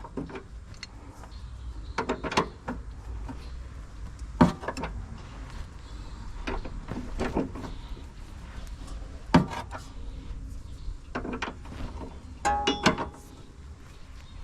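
Scattered metallic clinks and knocks of hand tools against a car's rear suspension, several with a short ring, during work on the sway bar stabilizer links, over a steady low rumble.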